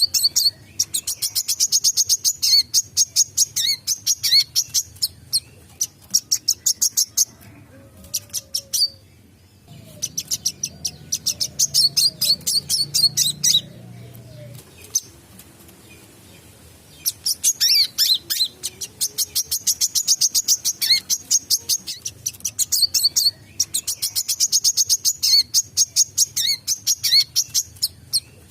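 A wiceh sunbird in full song, giving long runs of rapid, very high-pitched chattering notes, many a second. It pauses briefly about eight seconds in and again around fifteen seconds, then resumes.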